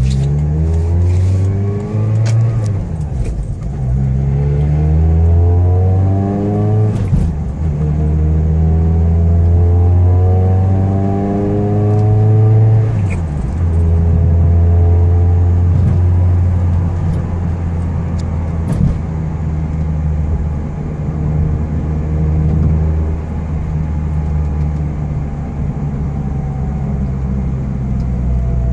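A 2011 Mazda Miata's four-cylinder engine climbs in pitch several times over the first dozen seconds, each climb ending in a sudden drop, then runs at a steady speed. The owner suspects the engine has a vacuum leak.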